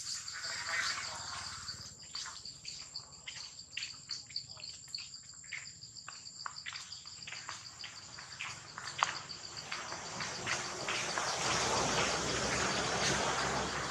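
Insects droning outdoors: a steady, high-pitched, pulsing trill. Short clicks and rustles are scattered through the first half, and a louder rustling hiss fills the last few seconds.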